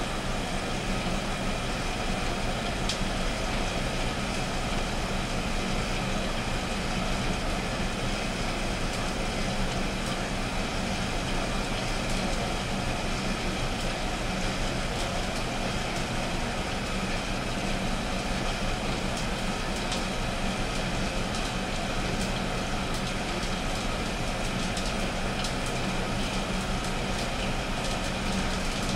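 Coffee roaster running mid-roast: the steady whir of its drum motor and fan, with occasional faint ticks.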